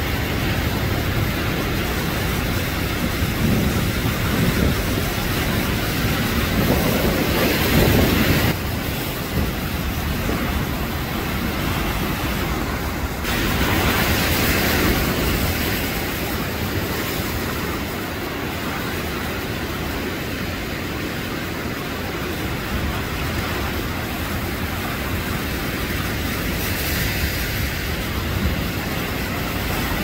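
Heavy sea surf breaking over rocks: a continuous rush of churning water, with big waves crashing louder about seven seconds in and again around thirteen seconds before settling to a steadier wash.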